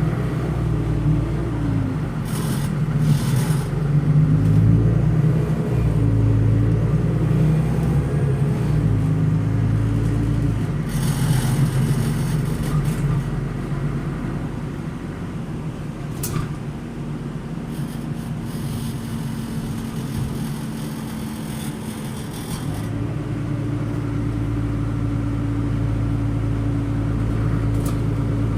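Solaris Urbino 12 LE bus's DAF inline six-cylinder turbo diesel heard from the passenger compartment, its pitch climbing and dropping several times as the ZF Ecolife automatic shifts up, then running steadier and settling to a steady pitch for the last few seconds. Interior fittings buzz and rattle from the engine's vibration.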